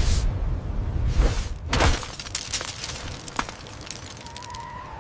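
Loud rumbling rush of floodwater with a few heavy surges, followed by a clatter of sharp cracks and shattering like breaking glass and debris. Near the end a siren starts to wail.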